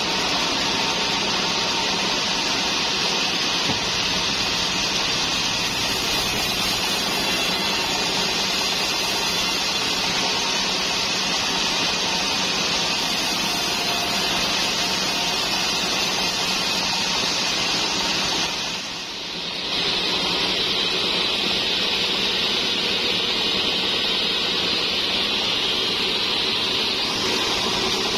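Large band sawmill running, its blade cutting through trembesi (rain tree) timber with a steady, loud hiss of sawing. The sound dips briefly about two-thirds of the way through, then resumes with more high hiss.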